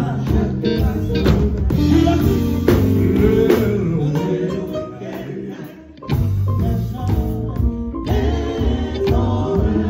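Live gospel band playing, with electric guitar and drums under singing voices. The band drops to a quieter break about five seconds in, then comes back in full about a second later.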